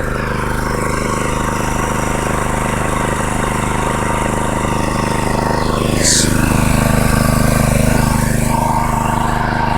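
Predator 212cc single-cylinder four-stroke engine running steadily with fresh oil, which the owner says makes it run a lot smoother; about six seconds in its note shifts and it gets a little louder.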